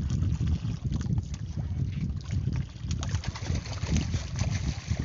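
Wind buffeting the microphone over water lapping at a small outrigger boat, with splashing from about three seconds in as a hooked skipjack tuna is hauled up to the boat side on a handline.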